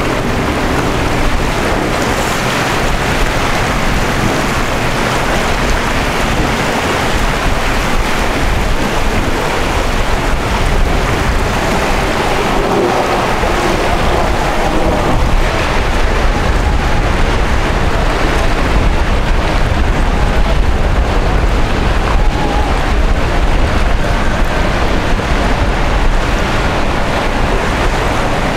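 Steady, loud rush of wind and choppy water, with a deep rumble underneath.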